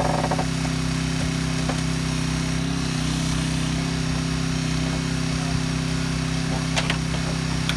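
Engine of a hydraulic rescue-tool power unit running steadily to feed the spreaders, its pitch lifting slightly for a moment about three seconds in.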